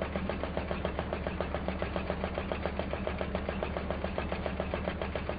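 Film projector running: a rapid, even mechanical clatter, about ten clicks a second, over a low steady hum.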